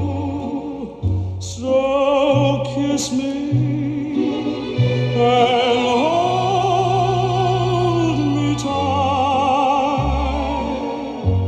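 Music played from a vinyl record on a Panasonic SD-85 stereo: a singing voice with wide vibrato on long held notes over a bass line that steps from note to note.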